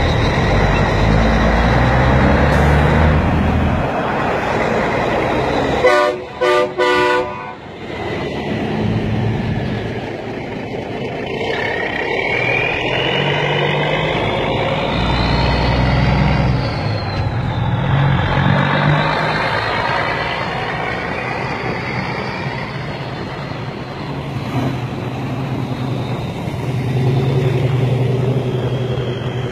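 Semi tractor-trailers pulling away, their diesel engines running, with a horn sounding three short times about six seconds in.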